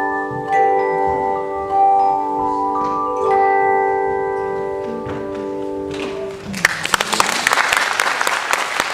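Tone chimes ringing sustained chords, struck together in a few groups and left to ring and fade. About two-thirds of the way through, audience applause breaks out and takes over.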